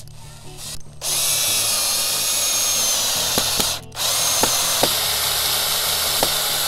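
Cordless drill driving self-drilling screws through a vinyl arbor post into a treated 2x4, running in two long runs with a short pause near the middle. A few light clicks sound during the runs.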